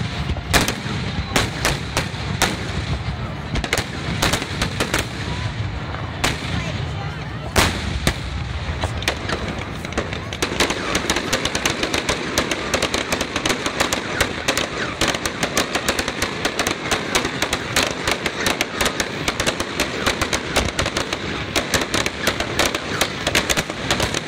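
Aerial fireworks shells bursting in rapid succession: a continuous barrage of bangs with crackle, one especially loud bang about eight seconds in, and the bangs coming thicker and faster from about ten seconds in.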